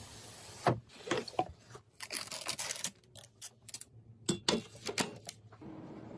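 Handling noises from computer parts and packaging being worked on: a run of sharp clicks and knocks with scraping and rustling between them, the densest clicks about two and four to five seconds in.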